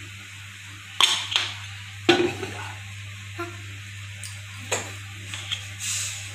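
Metal kitchenware knocking and clanking: two sharp knocks about a second in and a louder, ringing clank about two seconds in, then a few lighter clicks. A steady low hum runs underneath.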